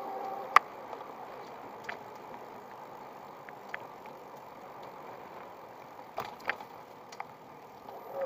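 An electric bicycle rolling with its hub motor's whine dropped away: a steady hiss of tyres and wind with scattered sharp clicks and knocks from the bike rattling over the paving, the loudest about half a second in and a couple around six seconds. The electric motor's whine comes back in near the end.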